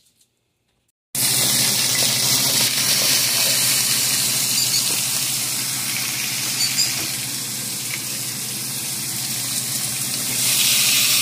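Sliced beef searing in a hot pot: a steady, loud sizzle that starts abruptly about a second in, as the meat begins to brown.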